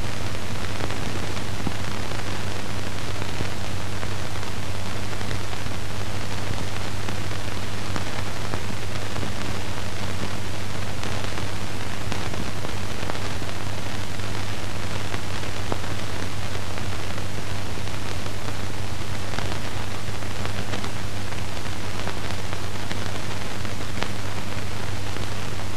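Steady hiss with a low, even hum from the soundtrack of an old 1950s film, with no other sound.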